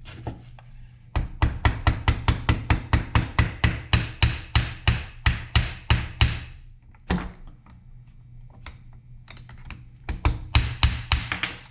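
Small hammer tapping quickly on the chainsaw's piston and pin, about four or five strikes a second for several seconds, then a single tap and another short run near the end. The tapping drives the wrist pin out of the piston to free it from the connecting rod.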